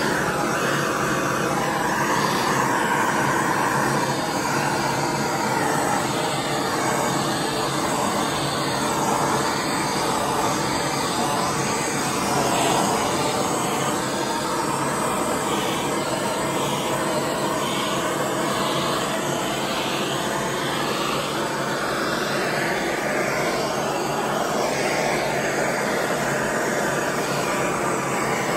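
Handheld gas torch burning with a steady rushing hiss of its flame.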